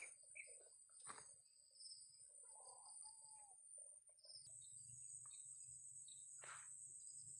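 Faint countryside ambience: a steady high-pitched insect drone with scattered short bird chirps. About halfway through the drone changes pitch slightly and becomes stronger.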